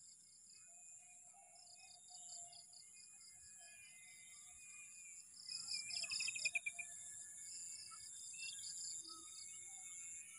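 Field ambience of crickets and other insects: a steady high trilling with repeated pulsing calls over it, and scattered bird chirps. A louder run of rapid chirps comes about six seconds in.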